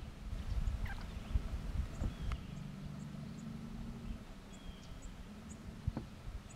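Outdoor marsh sound: an uneven low rumble with faint, short high chirps repeating about every half second, and a low steady hum for a couple of seconds in the middle.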